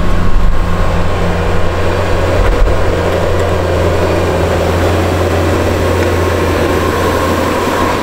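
Bobcat S650 skid-steer loader's diesel engine running steadily under load as it pushes heavy wet snow with a 120-inch Vernig low-profile snow pusher.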